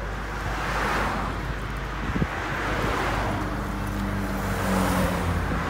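Cycling race team cars, some carrying bikes on roof racks, driving past close by one after another, their tyre and engine noise swelling and fading with each pass. One engine note stands out about halfway through.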